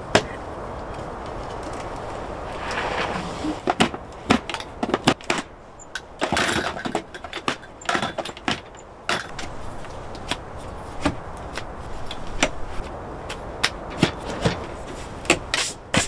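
Irregular clicks, knocks and short scrapes of things being handled, with steady wind noise during the first few seconds.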